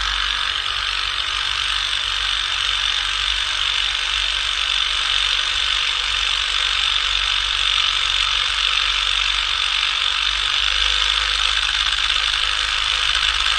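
Cordless impact driver hammering steadily and without a break as it drives the shock absorber's top shaft nut tight.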